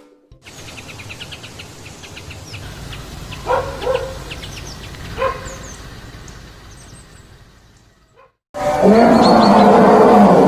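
Outdoor background with small birds chirping and two short animal calls, then, about two seconds before the end, a loud, long, deep animal call starts, its pitch sliding down.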